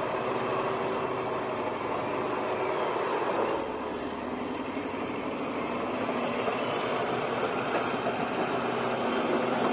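Large Caterpillar crawler bulldozer's diesel engine running steadily as its steel tracks roll over rough, rocky dirt.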